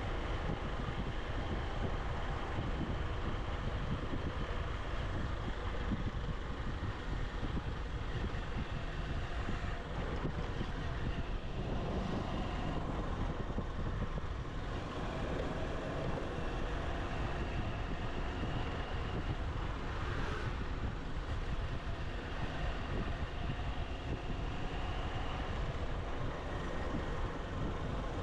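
Motorcycle engine running steadily while riding, with wind noise.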